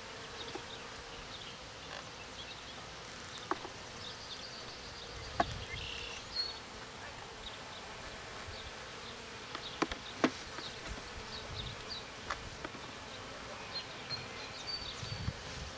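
Honeybees buzzing steadily around an open hive, with a few sharp knocks, the loudest about five and ten seconds in.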